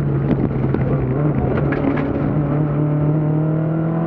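BMW 2002 Ti's four-cylinder engine running hard at fairly steady revs, heard from inside the rally car at speed, with the revs starting to climb near the end. A few sharp knocks come through in the first two seconds.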